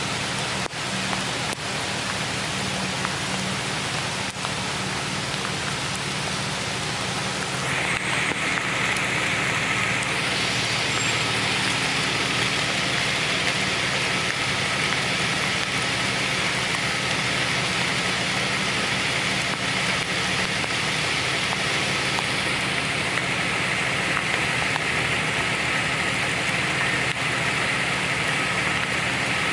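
Jeep Wrangler TJ engine running steadily under a constant hiss of rain. The hiss grows louder about eight seconds in.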